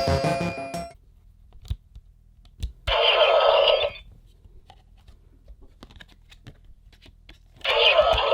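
Plastic clicks and clacks from a Kamen Rider Neo Decadriver toy belt being handled. About three seconds in, a burst of electronic sound lasting about a second comes from the belt's speaker. Background music cuts off about a second in.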